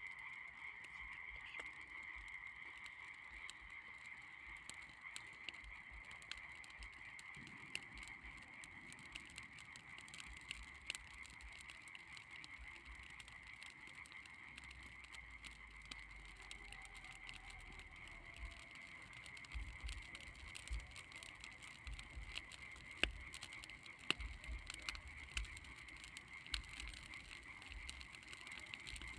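Bonfire of dry branches and grass crackling with sharp, irregular pops, a few louder ones in the second half, over a steady high-pitched drone.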